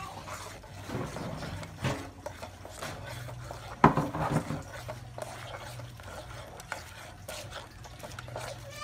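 Metal ladle stirring in an aluminium cooking pot, scraping and clinking against the metal, with one sharp clink about four seconds in, over a steady low hum.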